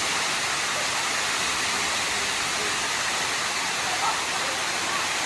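Tall horsetail waterfall pouring steadily into its plunge pool: an even, unbroken hiss of falling water.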